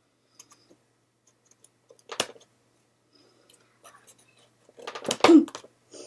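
Scissors and plastic toy packaging being worked by hand: scattered light clicks, a sharp snap about two seconds in, and a louder burst of handling noise near the end.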